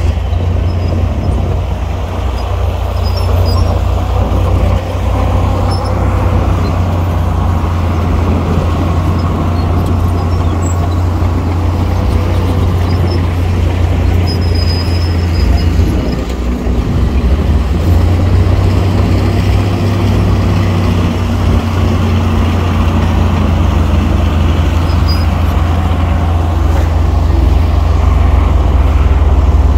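Heavy earthmoving machinery's diesel engine running steadily with a deep low rumble, easing briefly about sixteen seconds in before carrying on.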